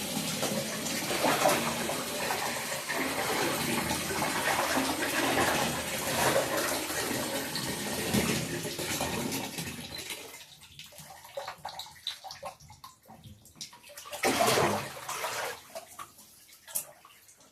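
Tap water running into a tub as a bath is drawn, shutting off about ten seconds in. A short louder noise follows a few seconds later.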